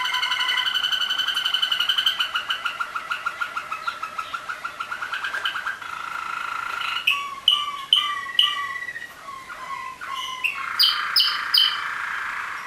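Waterslager (Malinois) song canaries of a four-bird stam singing together: fast rolling trills, then about seven seconds in a run of separate falling notes at roughly two a second, with bright higher notes near the end.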